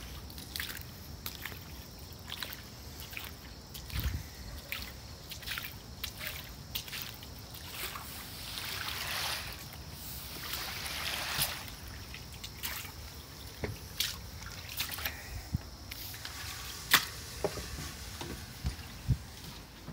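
Footsteps splashing through about an inch of standing water on a flat roof, with a longer stretch of sloshing in the middle; the roof has no pitch to drain to its scuppers. Near the end, a few sharp clicks of a sliding window latch being worked.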